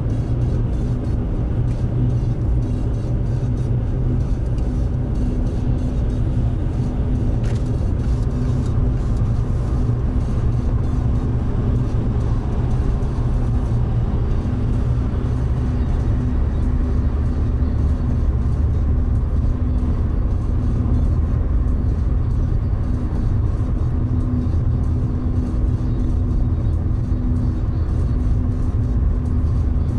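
Steady in-cabin road noise of a car cruising at motorway speed: a low, even rumble of tyres and engine with a faint steady hum.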